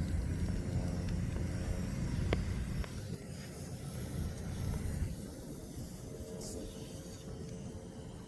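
Low steady rumble with a faint hiss of air while a go-kart tire is held under pressure, about 45 psi, to seat its bead. Air is leaking past the bead. A single click comes about two seconds in, and the rumble eases about three seconds in.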